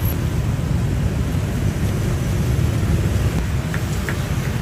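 Steady low rumble of street traffic, with a few faint short high-pitched blips near the end.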